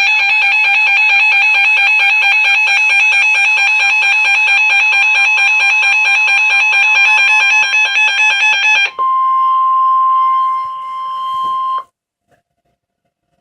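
Emergency Alert System alarm for a severe thunderstorm warning: a loud, harsh pulsing multi-tone attention signal for about nine seconds, then a single steady tone for about three seconds that cuts off abruptly.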